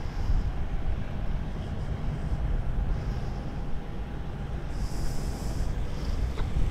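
Yamaha MT-03 660's single-cylinder engine running with a steady low rumble.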